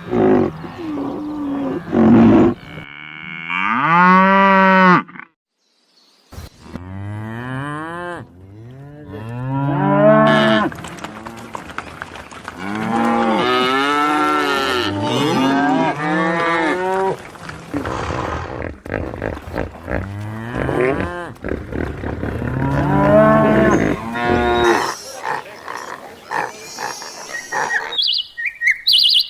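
Cattle mooing: a long run of loud moos, one after another, each rising and falling in pitch. There is a brief gap of silence about five seconds in.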